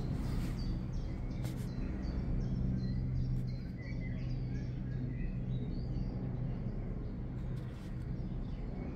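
Small birds chirping in short repeated notes over a steady low hum.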